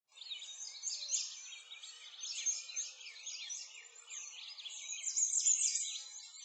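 Many songbirds chirping and singing at once, with quick overlapping calls that go on without a break.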